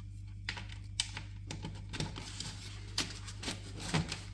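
Cables and their plug connectors being pushed through holes in the display's mounting bracket and handled, giving scattered light clicks and taps, roughly one every half second.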